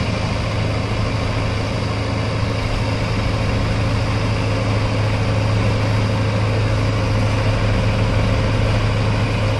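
Diesel engine of a JCB 3DX backhoe loader idling steadily, a low even hum that grows slightly louder in the second half.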